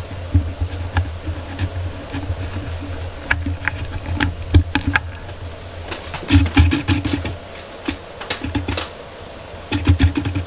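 Light key clicks, like typing on a keyboard, coming in several quick runs and single taps, with dull low thumps underneath.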